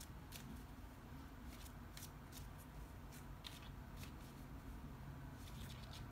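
Small oracle card deck being shuffled hand over hand, giving faint, irregular soft clicks and snaps of cards sliding against each other.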